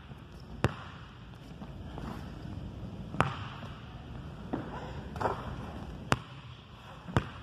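A basketball bouncing on a hardwood gym floor: four sharp, separate bounces spaced irregularly, about one to three seconds apart, one with a short echo.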